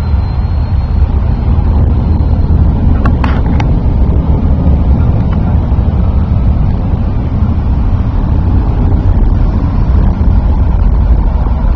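Wind buffeting the microphone, a steady low rumble that masks most other sound.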